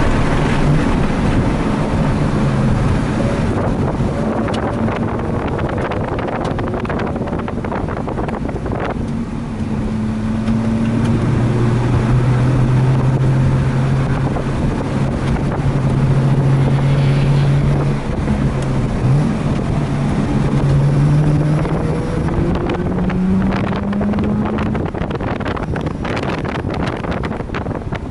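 Mazda RX-8's two-rotor rotary engine running hard on track, its pitch climbing and dropping with throttle and gear changes, under heavy wind buffeting on the microphone.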